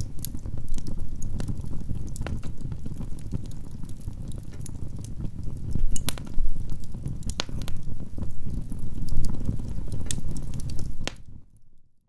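Wood fire of logs and pine cones burning in a fireplace: a steady low rumble of flames with frequent sharp crackles and pops, a few louder pops around the middle. It fades out near the end.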